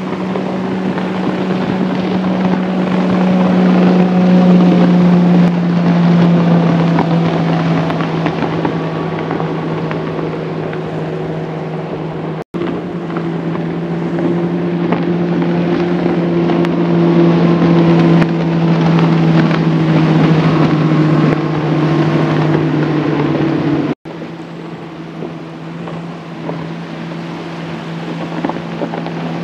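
Bass boats' outboard motors running at speed as the boats plane past, a steady engine drone that swells and dips slightly in pitch as each boat goes by. The sound cuts off abruptly twice, about twelve seconds in and again near twenty-four seconds, then carries on.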